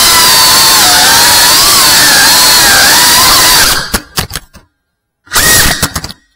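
FPV racing quadcopter's brushless motors and propellers whining loudly, the pitch rising and falling with the throttle. About four seconds in the whine breaks up and drops to silence for about half a second. It comes back briefly, then cuts out again near the end.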